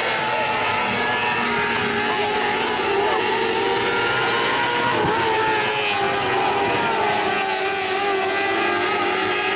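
Pack of small winged dirt-track race cars running at high revs around the oval, several engines buzzing over one another. About five seconds in, the engine pitch drops sharply as cars pass close by.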